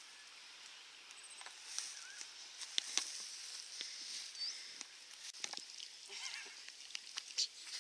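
Faint outdoor ambience: scattered irregular clicks and crackles over a steady high hiss, with a couple of brief high chirps.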